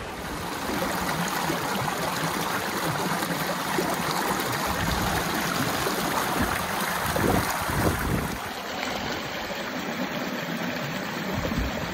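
Pistyll Rhaeadr waterfall's falling water, a steady rushing, with a few low thumps in the second half.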